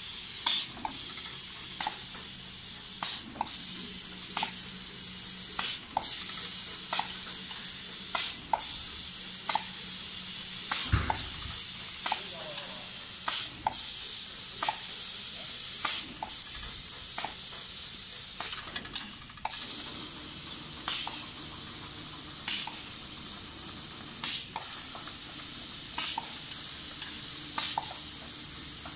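Automatic spray-painting machine's gantry-mounted spray gun hissing steadily as it atomises paint over wooden kitchen cabinet door panels, with short breaks about every two and a half seconds. A single dull thump comes near the middle.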